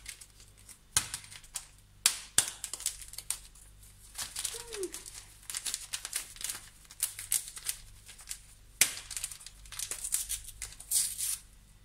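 A small paper sachet of baking powder crinkling and rustling as it is handled and opened: a run of irregular crackles and clicks.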